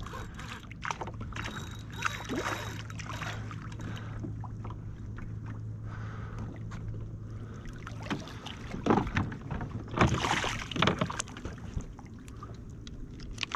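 Hooked redfish splashing at the surface beside a kayak as it is reeled in and gripped, with scattered knocks against the kayak; the loudest splashing comes after about nine seconds.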